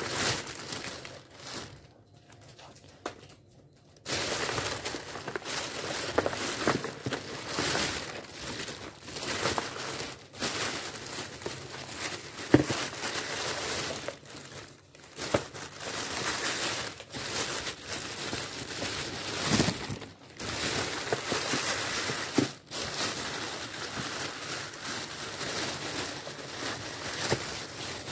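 Plastic shopping bag and cellophane snack wrappers crinkling and rustling as snacks are taken out, with a few sharp knocks of cardboard snack boxes being handled. The rustling picks up about four seconds in.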